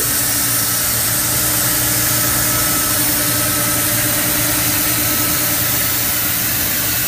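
Industrial machinery running steadily: an even hiss with a few faint steady hum tones underneath, no starts, stops or knocks.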